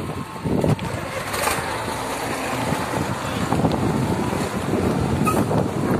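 Wind buffeting a phone's microphone while riding a bicycle, with vehicle noise beneath.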